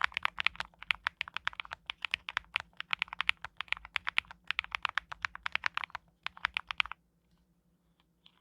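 Fast typing on an Owlab Spring custom mechanical keyboard with Sakura (珞樱) switches and Mondrian keycaps: a quick, uneven run of keystroke clacks that stops about seven seconds in, with a single light keystroke near the end.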